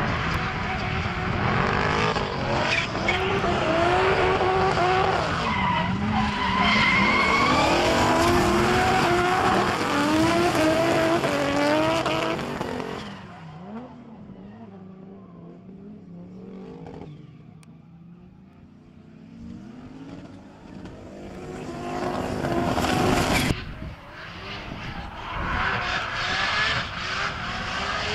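Drift cars sliding under heavy throttle: engines revving hard, the revs rising and falling over and over, with tyres screeching. The noise drops away for several seconds in the middle, builds again, cuts off abruptly near the end, and loud revving resumes.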